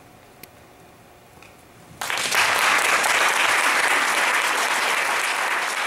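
Hushed for about two seconds apart from one faint click, then a theatre audience breaks suddenly into loud, steady applause.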